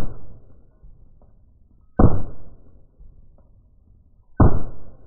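Slowed-down gunshots from an 1874 Camel-model Gatling gun: three deep booms about two seconds apart, each fading away over half a second.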